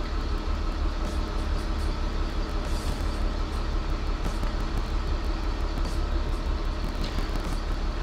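Steady low rumble and hiss of background noise, with faint small clicks of hand and tool work on a mountain bike's headset top cap.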